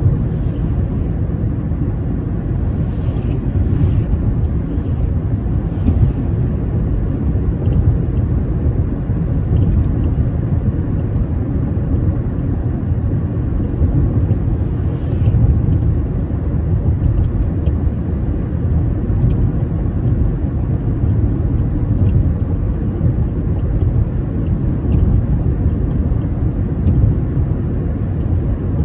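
Steady low rumble of a car driving, engine and road noise, with a few faint clicks.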